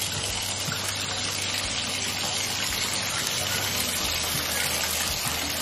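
Bathtub tap running, water pouring steadily into the tub as it fills.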